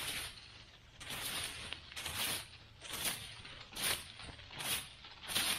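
Dry fallen leaves rustling and crunching in a steady series of swipes, about one every 0.8 seconds, as leaf litter is cleared off the ground.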